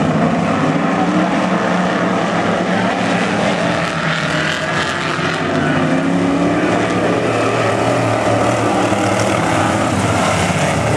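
A pack of dirt-track sportsman coupe race cars running at racing speed, their engines blending into one loud, continuous drone whose pitch rises and falls as the cars accelerate and back off.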